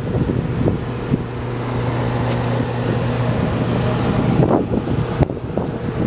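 Blizzard wind buffeting the microphone, a loud rough rumble. A steady low hum runs under it for a few seconds in the middle.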